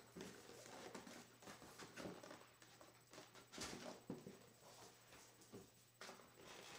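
Faint rustling, scraping and soft knocks of a cardboard box being handled and turned over in the hands.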